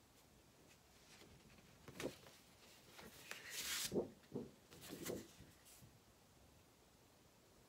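Large sheets of drawing paper being handled: a short rustle and slide of paper about halfway through, with a few light knocks and taps as one page is put down and the next picked up.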